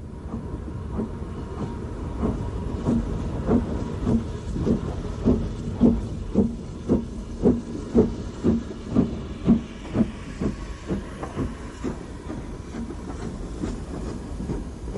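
BR Standard Class 4 4-6-0 steam locomotive working by, its two-cylinder exhaust beating about twice a second, loudest in the middle and fading away over the last few seconds.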